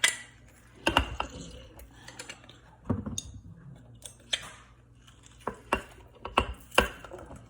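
Sharp knocks and clicks of kitchen utensils and dishes at uneven intervals, as lemons are squeezed into the jar of syrup.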